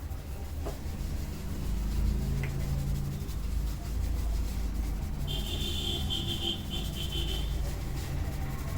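Hands rubbing and kneading a head of hair during a head massage, over a steady low rumble of background traffic. A high warbling sound comes in a little past the middle and lasts about two seconds.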